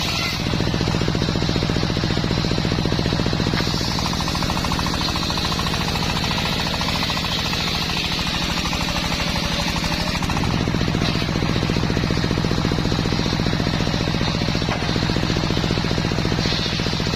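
Engine-driven homemade circular sawmill running with a fast, even pulse while it saws a waru log. The engine's note sags in the middle and picks back up about ten seconds in.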